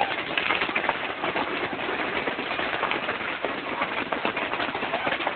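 Fireworks crackling: a dense, continuous run of rapid small pops and snaps with no big low booms.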